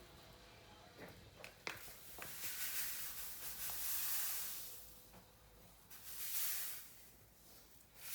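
Cake ingredients being added to a mixing bowl: a few light knocks, then two stretches of soft hissing as they pour in.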